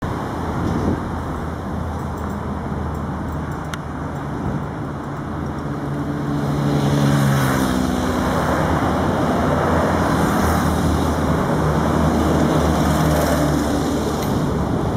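Boeing 777-300ER's GE90 jet engines at takeoff thrust as it climbs out: a broad, steady roar. Low tones slide down in pitch in the first half, and the roar swells about seven seconds in and stays loud.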